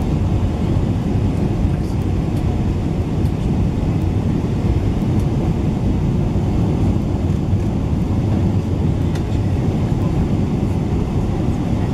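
Steady low rumble inside the cabin of a Boeing 777-300ER on final approach, from its GE90 engines and the airflow over the fully extended flaps.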